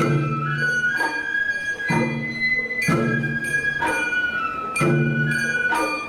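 Sawara-bayashi festival music: a shinobue bamboo flute plays a held high melody over taiko drum strokes about once a second.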